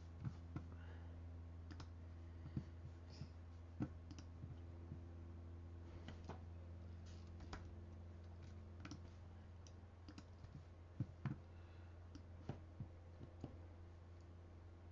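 Scattered faint clicks at a computer, irregular and a second or more apart, with a pair of slightly louder ones late on, over a steady low hum.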